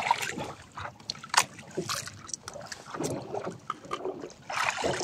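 Water splashing against a small boat's hull as a fish is hauled out of the sea on a handline, then scattered light clicks and taps while the line and fish are handled.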